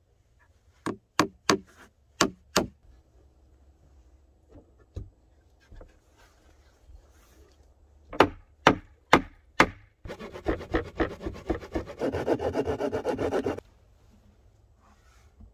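Hatchet poll hammering nails into wooden planks: six sharp blows, then after a pause four more. Then about three and a half seconds of rapid sawing on wood that stops suddenly.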